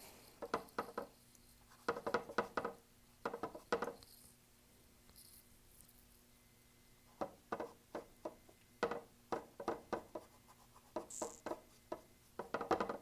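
Paintbrush stroking and dabbing acrylic paint onto a canvas: short strokes in quick clusters, with a pause of a few seconds midway.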